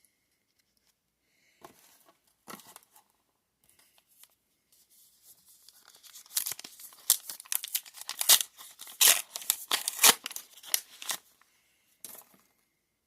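Trading card booster pack wrapper being torn open and crinkled by hand: a few light handling rustles first, then several seconds of dense tearing and crinkling that tails off near the end.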